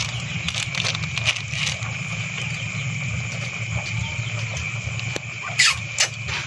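A pot of snails in coconut milk simmering over a wood fire, with soft bubbling and crackling and a couple of louder pops near the end, under a steady high chirring of crickets.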